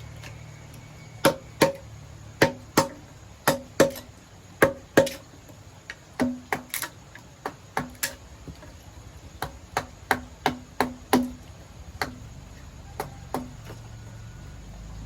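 Hand tool striking wood in a steady working rhythm, as in chopping or chiselling while carving. The sharp knocks mostly come in pairs, about one pair a second, and each is followed by a short ringing tone. They grow sparser near the end.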